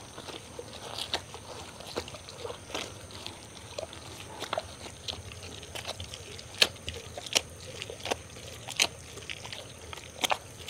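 Traditional stone grinder, a round stone pestle turned by hand in a stone basin, grinding dry red chillies and mustard seeds with salt water into a wet, coarse paste. Stone scrapes on stone with irregular crunches and sharp knocks, the loudest knock about six and a half seconds in.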